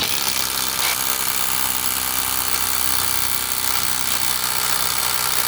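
Ridgid cordless impact wrench hammering steadily on a lug nut, running continuously at full speed.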